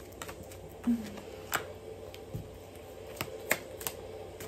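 Tarot cards being shuffled and handled: a series of sharp snaps and taps, about half a dozen spread irregularly, with a brief vocal murmur about a second in.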